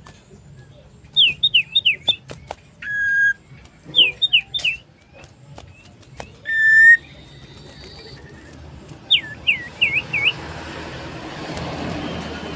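Common iora (cipoh) singing loud and clear, the song the title describes as seeking a rival. The song comes as three quick runs of three to five swooping whistled notes, with single long, steady whistles between them. A soft hiss builds near the end.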